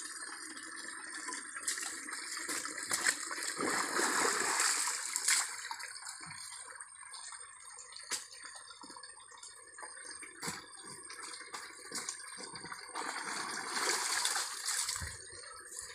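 Muddy water sloshing and splashing as a person wades and scoops in a shallow mud channel, with scattered short wet knocks; the splashing swells twice, about four seconds in and near the end.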